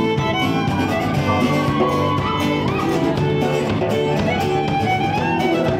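Music with a fiddle melody gliding and sliding over guitar accompaniment.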